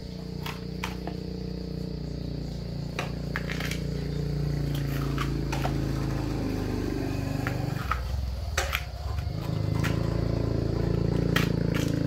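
A motor engine running steadily, its pitch drifting slowly and growing louder, with a brief dip about eight seconds in. Over it come scattered sharp cracks of bamboo-shoot husks being split and peeled by hand.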